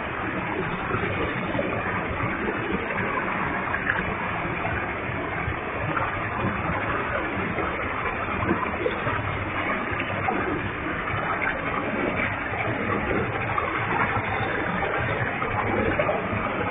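Waterfall with a heavy flow: a steady, unbroken rush of falling water and spray.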